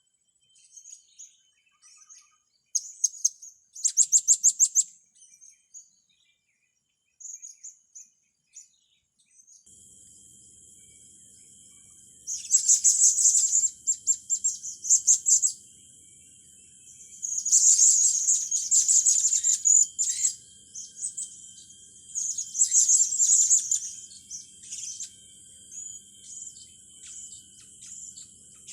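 Young serindit (blue-crowned hanging parrots) chirping in high, thin notes and fast trilled twitters, in a few short bouts. From about a third of the way in, a steady high-pitched whine with a faint low hum sits underneath.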